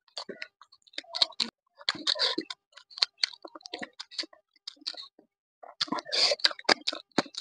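Close-up chewing and lip smacking from a mouthful of rice eaten by hand: a quick, irregular run of wet mouth clicks, busiest about six seconds in.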